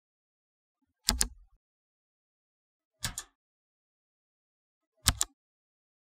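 Mechanical keyboard key struck three times, about two seconds apart, each stroke a quick double click; the middle stroke is softer than the other two.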